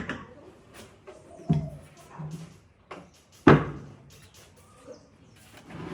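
Scattered knocks and clicks, with two heavier thumps about two seconds apart, the second the loudest.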